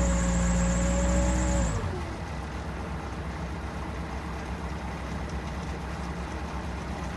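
Bobcat 773 skid steer's engine running at high throttle with a high whine, then throttled back about two seconds in. Its pitch falls and it settles to a quieter, steady idle.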